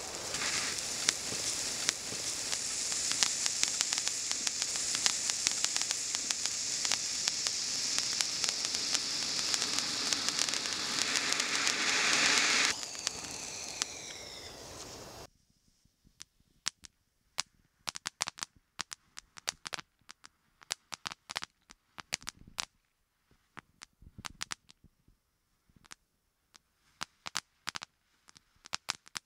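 Mystical Cone #3 cone fountain firework spraying with a steady hiss for about thirteen seconds, then dying down. After that a Candy Crackle crackling fountain gives off scattered sharp crackles and pops.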